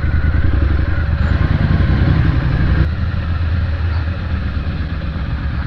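Triumph Street Scrambler 900's parallel-twin engine running as the motorcycle is ridden along, loud and steady, its note dropping a little about three seconds in.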